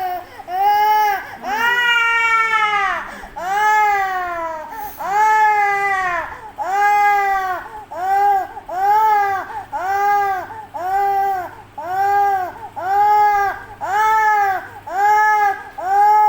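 Loud, insistent crying that rises and falls in pitch with each cry, about one cry a second, a few longer cries among the first.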